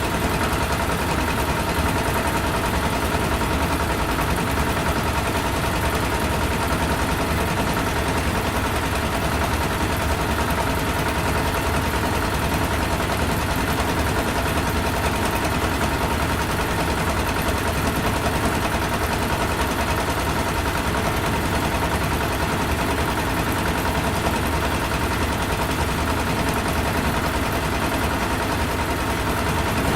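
Large factory engine running steadily, with a rapid, even chugging and a steady whine on top.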